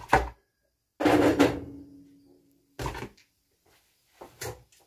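Kitchen clatter: four separate knocks of things being set down and moved, the loudest about a second in with a short ringing tone after it.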